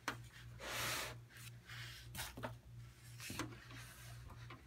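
Hands handling and sliding metal server cases across a tabletop: a scrape as a case slides, a little under a second in, and a few light knocks, over a steady low hum.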